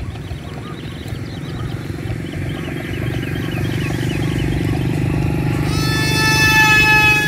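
WLToys XK A180 F-22 RC plane's electric motor and propeller buzzing as it flies, growing louder as it comes close, with a high whine joining about six seconds in.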